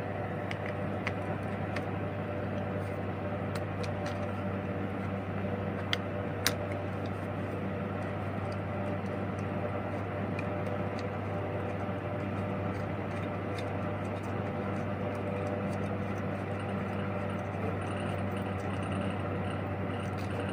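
Steady low hum and whir of a ceiling fan running, with a few sharp clicks of hard plastic tripod and phone-holder parts being snapped and turned by hand, the two loudest about six seconds in.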